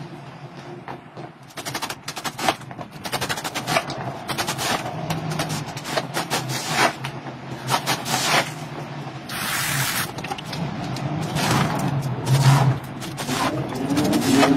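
Rubber floor squeegee pushed in strokes across a soaked textured rug, scraping and chattering in quick clicks as it wrings out water, over a steady low hum.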